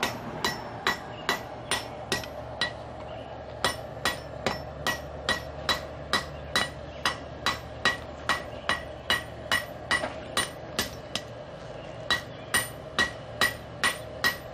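Hammer blows on a red-hot steel railroad spike on an anvil, about two ringing strikes a second, struck with the peen side of the hammer to draw out and round the metal. The strikes pause briefly twice, with a steady hum underneath.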